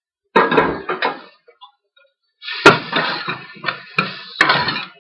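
A metal spoon scraping and knocking against a stainless steel pan as chopped onion, garlic, ginger and chilies are stirred while frying in oil. There is a short clatter about half a second in. From about halfway there is continuous scraping, with several sharp knocks of the spoon on the pan.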